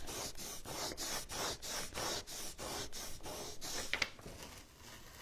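A rub-on transfer being burnished onto a painted pine board: quick back-and-forth rubbing strokes, about five a second, that stop near the end, with a short high squeak about four seconds in.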